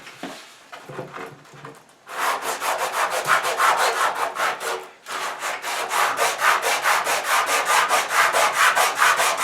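Hand sanding a rounded-over wooden tabletop edge with a sandpaper-lined quarter-round sanding block: quick back-and-forth scratchy strokes, about five a second. They start about two seconds in and pause briefly about five seconds in.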